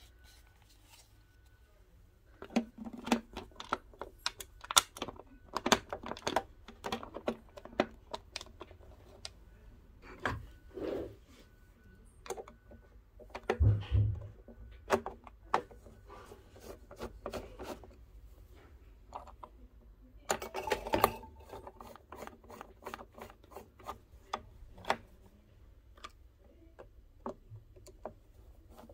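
Irregular clicks, taps and scrapes as the plastic bottom cover of a mechanical Janome sewing machine is put back on and its screws are driven in with a screwdriver, metal tip on screw heads.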